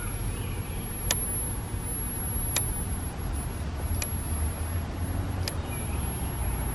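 Zareba EDC15M-Z DC electric fence controller clicking four times, about once every one and a half seconds, over a steady low rumble. Each click is a pulse of charge sent down the fence wire, the sign that the charger has power and is working.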